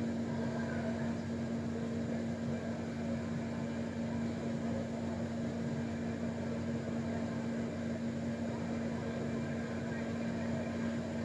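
Steady hum: one constant low tone over an even bed of background noise, unchanging throughout.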